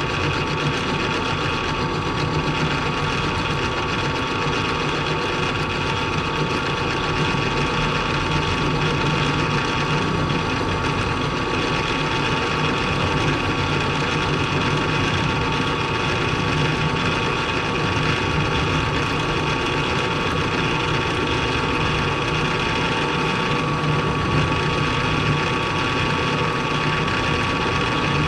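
Milling machine running steadily with an end mill in the spindle, a constant machine whine with several steady tones over a low hum.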